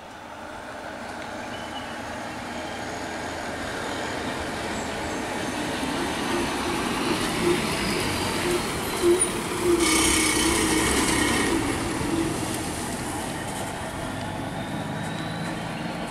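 Diesel engine of a Tamil Nadu government bus running, growing louder as the bus comes round the hairpin bend and passes close by, then fading a little as it pulls away. About ten seconds in there is a brief burst of high hissing noise, lasting about a second and a half.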